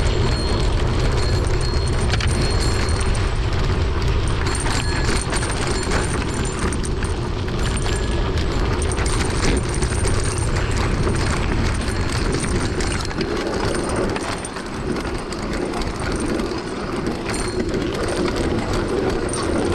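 Mountain bike riding over a rough dirt track: wind rumbling on the microphone over steady rattling and clicking from the bike. The low wind rumble eases about two-thirds of the way in.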